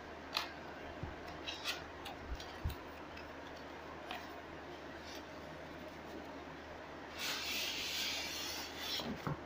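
Cardboard box being handled and opened: scattered light taps and knocks, then, about seven seconds in, a scraping rustle of cardboard sliding for a second or so, followed by a few more taps.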